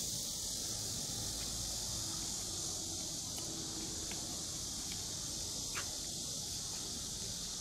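Cicadas droning in a steady high-pitched hiss, with a few faint light ticks.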